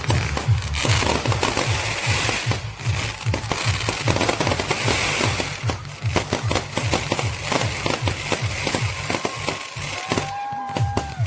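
Fireworks display: dense crackling and bangs of aerial fireworks going off over loud music with a steady bass beat.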